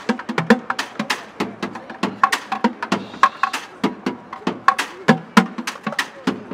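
Bucket drumming: plastic buckets and jugs struck with wooden drumsticks in a fast, steady rhythm of sharp knocks at several different pitches.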